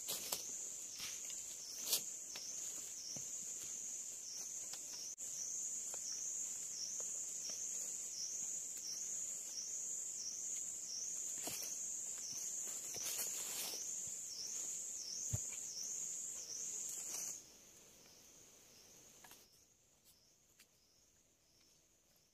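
A loud, high-pitched insect drone pulsing steadily a little more than once a second, cutting off abruptly about seventeen seconds in. A few sharp knocks and taps of wood being handled and trimmed.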